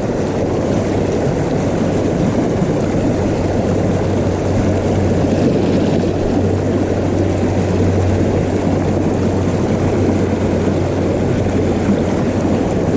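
Steady rush of a small creek's flowing water, with a low steady hum underneath.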